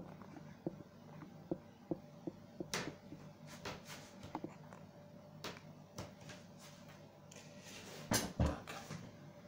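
Small clicks and taps of metal tools and tiny parts being handled on a desk, scattered and irregular, with a louder clatter about eight seconds in.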